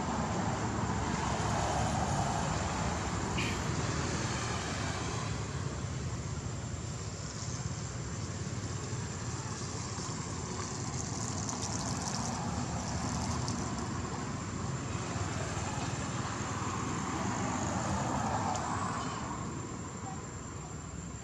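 Road traffic going by: a steady rumble of vehicles that swells as they pass, once at the start and again near the end, with a thin steady high tone over it.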